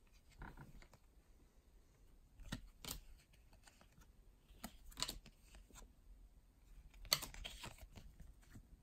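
Trading cards being flipped through by hand and laid on a table: faint, scattered flicks and slides of card stock, with sharper ones about two and a half, five and seven seconds in.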